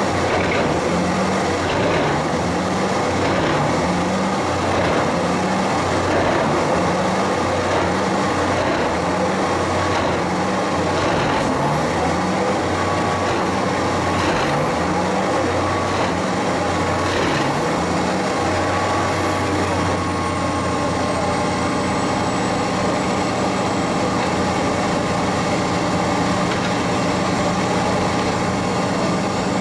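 Jenz HEM 561 Z wood chipper running loud and steady while a crane grapple feeds wood into it, with a pulsing beat about every second and a half. About two-thirds of the way through the pulsing stops and the machine runs on evenly, its high whine settling slightly lower.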